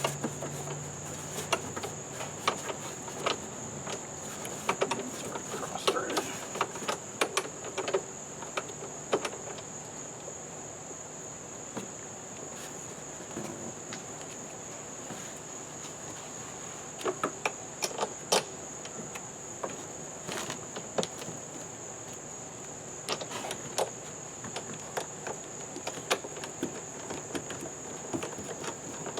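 Steady high-pitched trilling of crickets, with scattered clicks and knocks as the lawn mower's parts are handled and adjusted.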